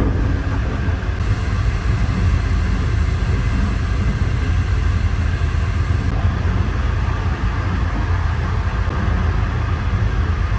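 Steady low rumble of a passenger vehicle in motion, heard from inside the cabin.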